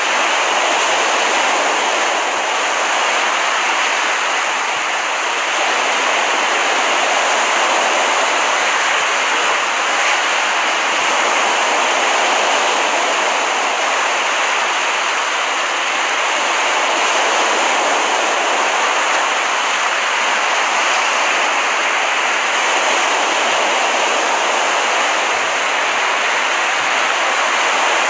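Steady wash of ocean surf from a relaxation-app beach recording, with slight rises and falls in level.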